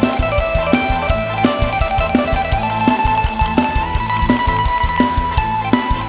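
Live band playing an instrumental passage: a drum kit keeps a steady beat under electric guitar and bass, with a lead line holding long notes.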